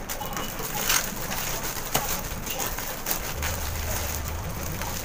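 Cellophane wrapping of a gift hamper crinkling and rustling as it is handled, with irregular sharp crackles.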